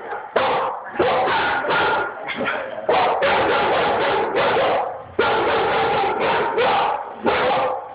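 Two dogs barking nonstop in long runs of loud barks, with only short breaks.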